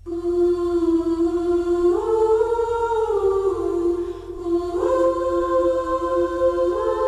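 Wordless choral singing holding sustained chords, the harmony moving to a new chord every second or two, over a low steady hum.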